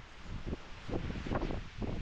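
Storm wind buffeting the microphone in irregular low gusts over a steady hiss.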